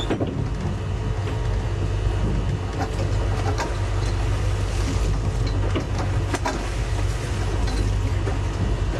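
Tiara 27 sportfishing boat's engine running steadily with a low hum, under a steady hiss, with a few sharp knocks.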